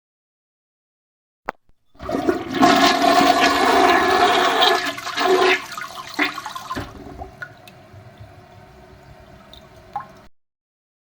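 Toilet flushing: a short click about one and a half seconds in, then a loud rush of water for about five seconds that dies down to a quieter running of water and stops about ten seconds in.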